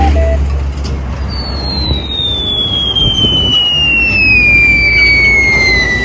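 A high whistle glides steadily downward for about five seconds, starting about a second in, over loud rumbling noise that eases after the first couple of seconds.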